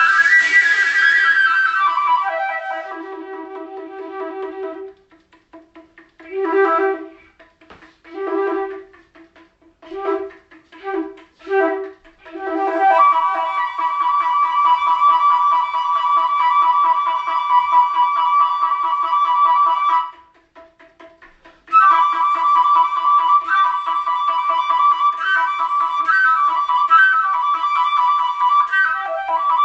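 Music: a flute-like wind instrument plays long held notes over a steady low drone. Short separate notes come before the long held ones, and the music breaks off briefly about two-thirds of the way through.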